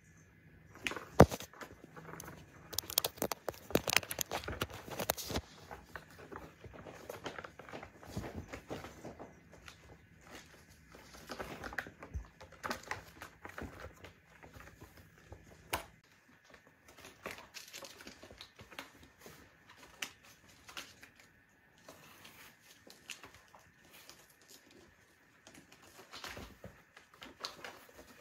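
Kittens scrambling over a corrugated cardboard scratcher and wrestling on the carpet: irregular scratching, rustling and soft knocks of claws and paws, with one sharp knock about a second in. The scuffling is busiest in the first several seconds and sparser after.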